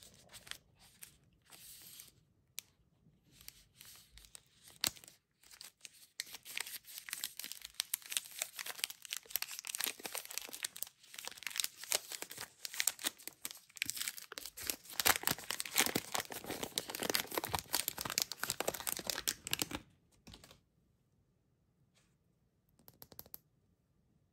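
Wrapper of a Gofrik chocolate wafer bar being torn and peeled open by hand: dense crinkling and crackling, busiest and loudest a few seconds before it stops, with one brief faint rustle after.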